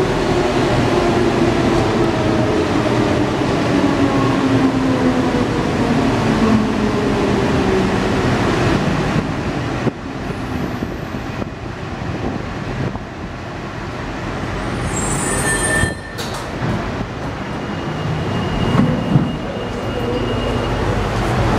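Cabin of a CAF NS-07 rubber-tyred metro train slowing down: the traction motor whine falls steadily in pitch over the first several seconds over the rolling noise. Later there is a brief high squeak and a sharp click, then a faint steady high tone near the end as the train comes in to a station.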